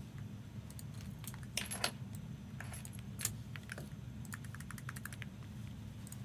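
Small objects being handled and rummaged through, giving scattered light clicks and rattles with a small cluster about a second and a half in, over a steady low hum.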